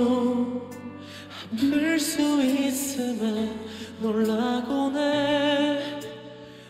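A ballad singer sings long, sustained phrases with vibrato over soft instrumental accompaniment, the last held note wavering and fading away.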